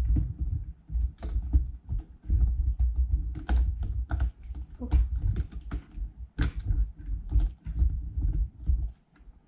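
Irregular clicks and knocks of the plastic parts of an LED ring light and its stand being handled and fitted together, over low handling thumps.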